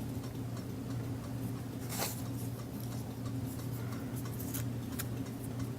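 Faint rustling and a few soft clicks of paper and craft materials being handled, over a steady low hum.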